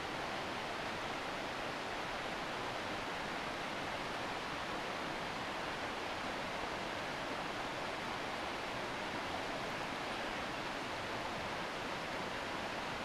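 Steady rush of river water running over a shallow riffle of small rapids, an even hiss with no breaks.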